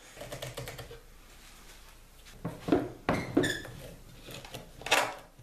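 One-handed bar clamps being handled and tightened on a workbench: a few sharp clicks and knocks of plastic and steel, a cluster in the middle and a loud one near the end.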